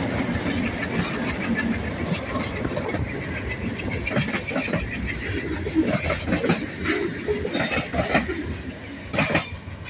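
Freight cars of a diesel-hauled train rolling past close by: wheels clacking over the rail joints amid a steady rumble, with short metallic squeaks and clanks and a louder clatter near the end.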